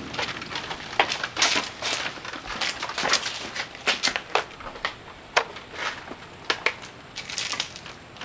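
Footsteps crunching over dry debris: irregular crackles and crunches.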